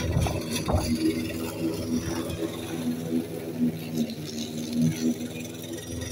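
Ride-on lawnmower engine running steadily as the mower drives, with a few rattling knocks in the first second.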